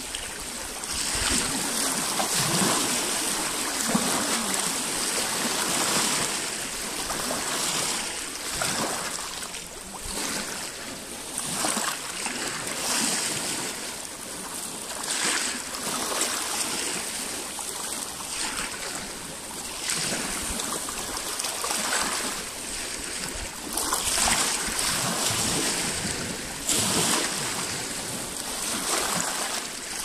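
Small lake waves lapping and splashing against a rocky shore, washing in uneven surges a few seconds apart.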